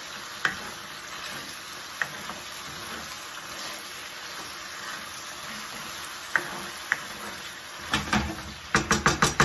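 Thick tomato masala with chicken and peppers sizzling in a non-stick wok as a spatula stirs it, with a few sharp clicks of the spatula on the pan. Near the end comes a quick run of about eight knocks, several a second.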